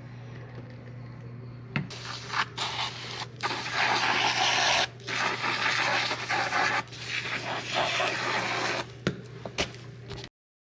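Irregular rubbing and scraping strokes, loud and rough, over a steady low hum; the sound cuts off abruptly near the end.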